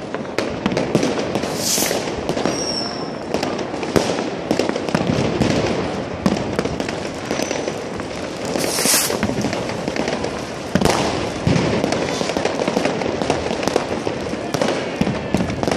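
Fireworks and firecrackers going off in a dense, continuous crackle of bangs and pops, with two louder hissing rushes about two and nine seconds in.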